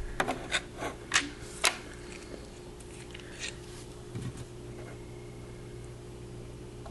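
Handling of a 3D-printed plastic puzzle and a super glue tube: a few sharp little clicks in the first second and a half or so, then only faint handling sounds over a steady low hum.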